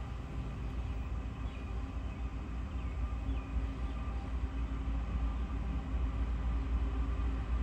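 Diesel freight locomotives approaching in the distance: a steady low rumble that grows slowly louder.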